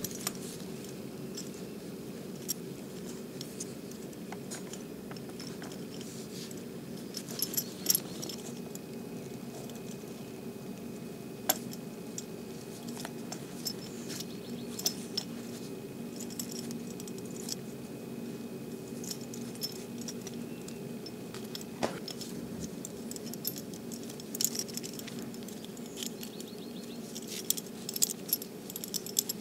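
Metal buckle and D-ring on a leather belt collar jingling and clicking now and then as hands wind and pull braided nylon cord through the collar, over a steady low hum.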